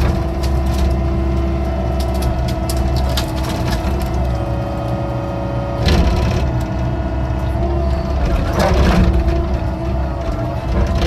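Excavator's diesel engine running with a steady whine that shifts in pitch, overlaid by cracks and crunches of the bucket digging, loudest about six seconds in and again around nine seconds.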